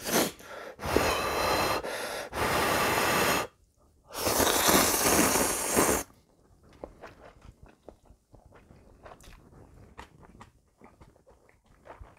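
A person blowing hard on steaming instant ramen noodles in a few long breaths, then slurping them loudly in one long pull of about two seconds, followed by quieter chewing with small wet clicks.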